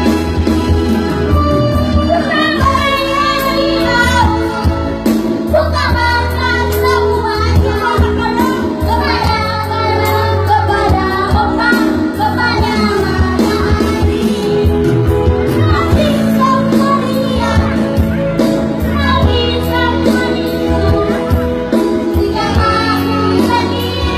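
A five-year-old child singing a song with instrumental backing music.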